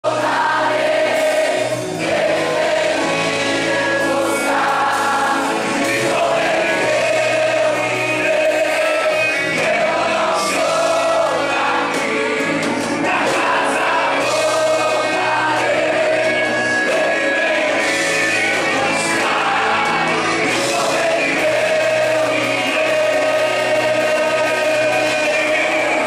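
Live gospel worship song: a male lead singer on a microphone, with the congregation singing along over music.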